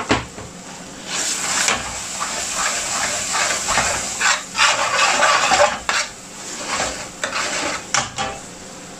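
Metal spoon scraping and stirring a sauce of onion and masala paste as it fries in a metal frying pan. There is a knock right at the start, then irregular scrapes from about a second in that stop near the end.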